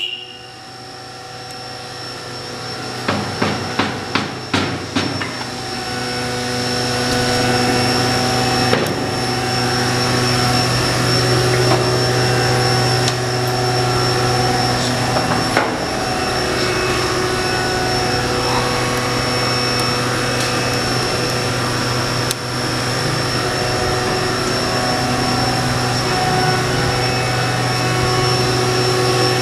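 Kawasaki Vulcan 500's parallel-twin engine running steadily, growing louder over the first few seconds and then holding. A quick series of about six knocks comes roughly three to five seconds in.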